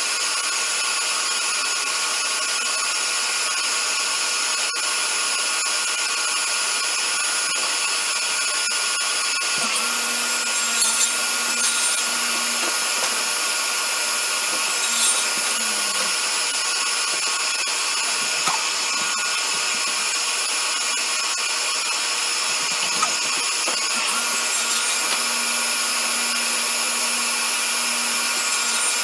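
Table saw running with a steady motor whine. Twice, about ten seconds in and again near the end, the blade cuts into a wooden board fed across it for several seconds, adding a lower hum and harsher, noisier sawing.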